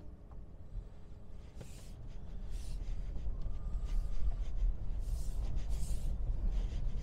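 Tesla Model 3 on winter tyres rolling slowly over packed snow and ice, heard from inside the cabin: a low tyre rumble that builds from about two seconds in, with soft scratchy crunches every second or so.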